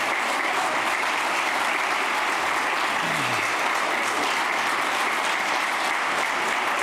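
A congregation applauding steadily.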